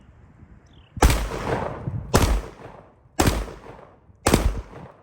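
Standard Manufacturing TS-12 12-gauge pump-action bullpup shotgun fired four times, about a second apart, each shot followed by a short echoing tail.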